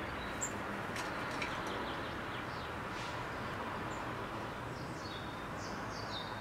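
Small songbirds giving short, high chirps now and then, some falling in pitch, over a steady hum of city background noise.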